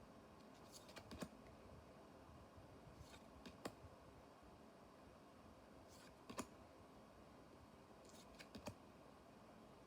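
Faint, soft clicks of trading cards being handled and flicked through from a booster pack, coming in pairs every couple of seconds over near silence.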